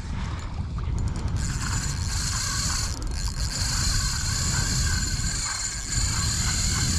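Penn Spinfisher 2500 spinning reel whirring steadily against a hooked fish, starting about a second and a half in, over low wind and water rumble.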